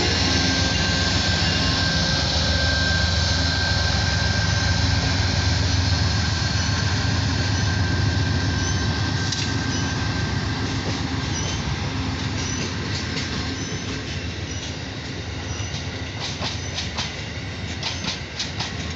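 Amtrak passenger train's stainless-steel coaches rolling past: a steady rumble of wheels on the rails that slowly fades, with the clicks of wheels over rail joints growing more distinct in the second half.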